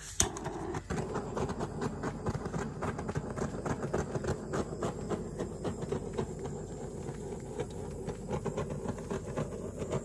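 Handheld butane torch burning with a rushing, fluttering hiss, its flame passed over wet epoxy resin to pop surface bubbles; it starts suddenly at the very beginning.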